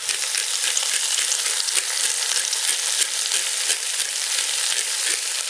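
Diced potatoes, carrots and celery sizzling steadily in a very hot enamelled cast iron Dutch oven, with a fine crackle throughout; the pan is still hot from browning chicken though the heat is off. A pepper mill is being twisted over the pot at the start.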